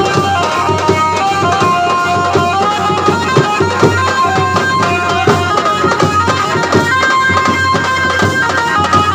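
Instrumental Indian-style music: hand-drum beats under a melody of held notes that steps up and down in pitch.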